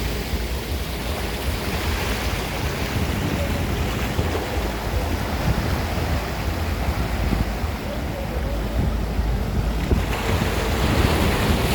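Ocean surf washing on the shore, with wind buffeting the microphone in a steady low rumble; the wash swells louder near the end.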